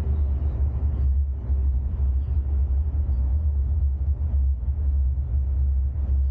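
Car driving slowly, heard through a 360 camera mounted on its roof: a steady low rumble of road and wind noise with an uneven, buffeting loudness.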